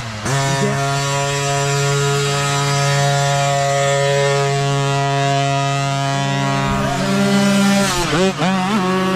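Mini dirt bike engines running at high, steady revs close by. Near the end the engine pitch dips and climbs again as the throttle is eased off and reopened.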